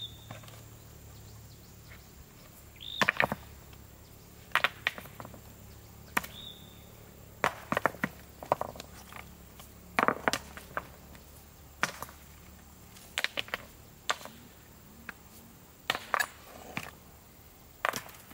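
A series of sharp knocks at irregular intervals, one or a quick cluster every second or two.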